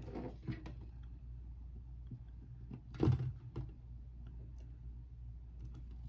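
Quiet crafting handling sounds: light taps and scrapes of a craft tool and fingers on a metal tray as layers of cardstock are pressed together, with one louder knock about three seconds in, over a steady low hum.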